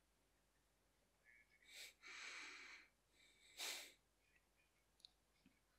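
Near-silent room with a person breathing close to the microphone: a few short nasal exhales, the strongest about three and a half seconds in.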